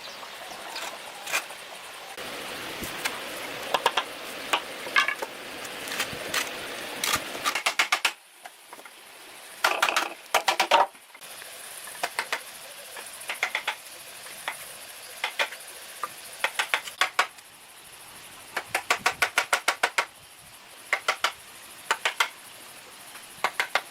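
Runs of short, sharp clicks and knocks, some coming several a second, over a steady background hiss.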